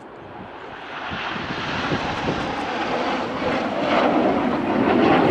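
Jet noise from a formation of BAE Hawk T1 jets, each with a single Rolls-Royce Turbomeca Adour turbofan, flying by in line astern. It is a rushing noise that grows louder over the first two seconds and is loudest near the end.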